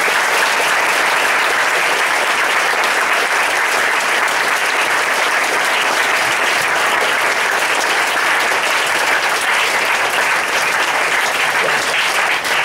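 Audience applauding: a dense, steady wash of clapping from many hands.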